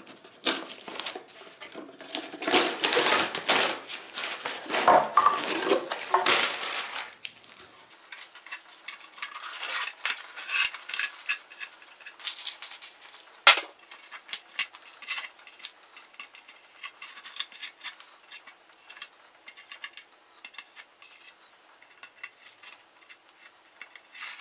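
Masking tape being peeled off the wooden guitar body, with its paper cover coming away. It crackles and rips loudest for the first seven seconds, then goes on as quieter rustling and crinkling of the balled-up tape, with one sharp click about halfway through.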